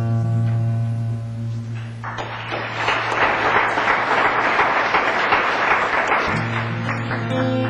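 Acoustic guitar's closing chord ringing out, then audience applause for about four seconds, and the acoustic guitar starts strumming again near the end.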